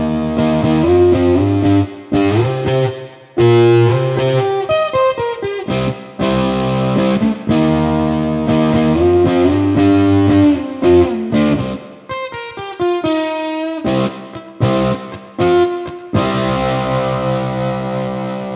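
Flight Vanguard solid-body tenor electric ukulele played through a fuzz pedal and amplifier: distorted, fuzzy chords and riffs. Near the end come short choppy stabs, then a final chord left ringing.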